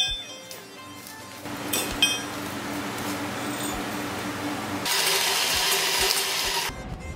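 Electric drill running for nearly two seconds, starting about five seconds in and cutting off sharply, over background music. Right at the start, a clank as a steel tractor pedal drops onto the concrete floor.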